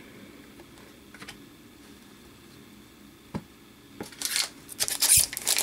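Quiet handling of trading cards with one sharp tap a little past three seconds in. From about four seconds in comes the crisp crinkling of the wrapper of an Upper Deck hockey card pack as the next pack is picked up.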